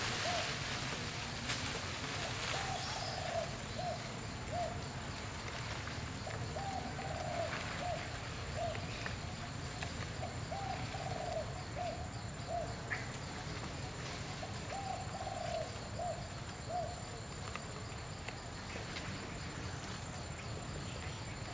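A dove cooing in repeated phrases, each a longer wavering note followed by two short ones, every few seconds, over steady low background noise.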